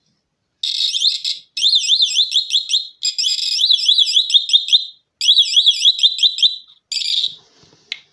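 Electronic alarm sounder giving a high warbling siren tone that sweeps up and down about five times a second, in several bursts with brief breaks between them, ending in a short different blip near the end.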